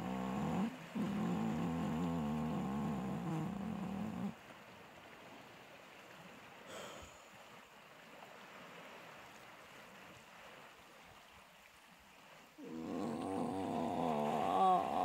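A low, sustained droning tone with wavering overtones that breaks off about four seconds in. In the pause only a faint steady wash of the sea is left. The tone returns about 13 seconds in, with a few quick upward slides near the end.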